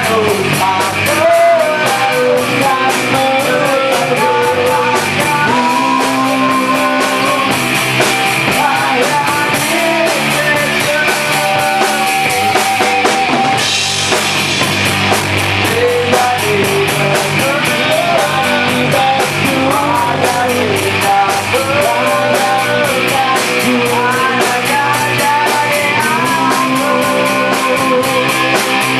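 A live band playing rock in a rehearsal room: electric bass and electric guitar over a drum kit with steady cymbal beats, loud and continuous.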